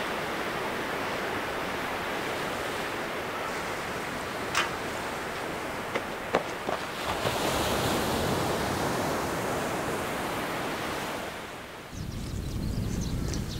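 Steady rushing outdoor wind noise, with a few faint ticks. Near the end it gives way to a lower buffeting rumble of wind on the microphone.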